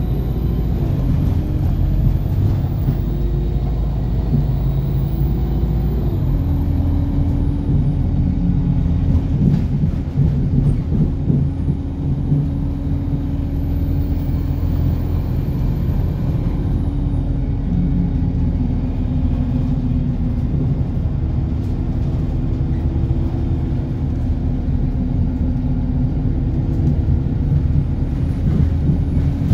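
Road noise of a moving car: tyres on the road and the engine running at speed, a deep, steady rumble with a constant hum. The engine's pitch shifts during the first several seconds, then holds steady.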